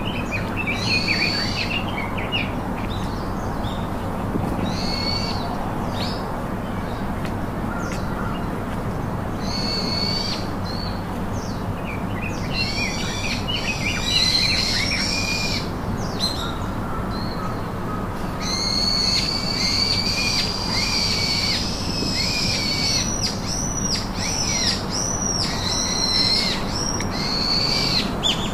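Birds calling in the surrounding trees: repeated high chirps and whistles, some sweeping sharply downward, coming in clusters and busiest in the second half, over a steady background hiss.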